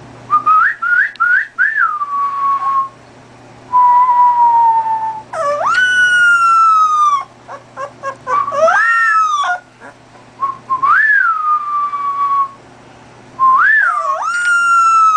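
Young puppy whining and howling in high, whistle-like tones: a quick run of short rising-and-falling squeaks at first, then several longer calls that swoop up and slowly slide down in pitch, with short pauses between them.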